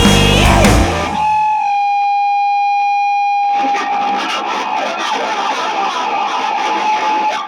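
A rock band's full sound cuts off about a second in, leaving a single distorted electric guitar note ringing on through effects. About halfway a rough, crackling noise comes in under the held note.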